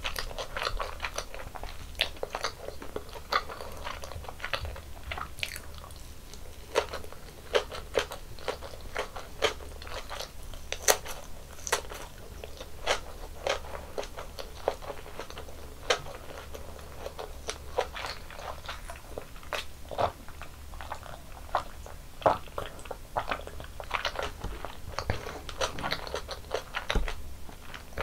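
Close-miked eating: biting and chewing food, with many crisp, crunchy clicks and wet mouth sounds several times a second. A faint steady low hum lies underneath.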